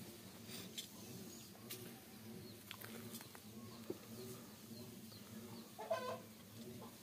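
Chickens clucking quietly in the background, with one louder, short hen call near the end.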